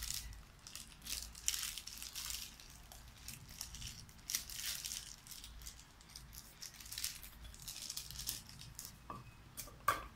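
Soft, irregular crinkling and crackling of papery skins as small garlic cloves are peeled by hand. Right at the end a wooden pestle starts knocking steadily in a mortar, a few strikes a second.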